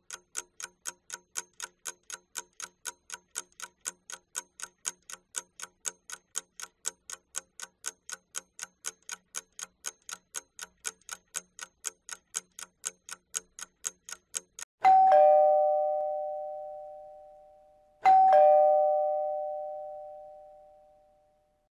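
A clock ticking quickly, about three ticks a second, which stops about three quarters of the way through. Then a doorbell chime rings twice, a few seconds apart, each chime ringing out for about three seconds.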